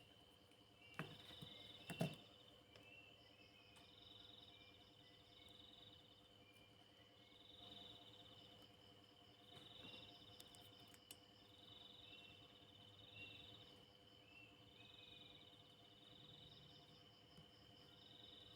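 Faint night chorus of insects: a steady high trill with pulsed high chirping bursts repeating about every two seconds. Two sharp knocks come about a second apart near the start, the second the louder.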